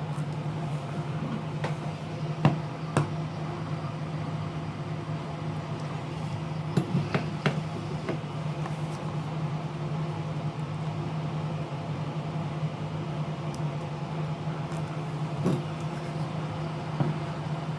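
A steady low electrical hum, with scattered light clicks and taps from small repair tools working on a tablet's casing. There are a couple of clicks early, a quick cluster about seven seconds in and a few more near the end.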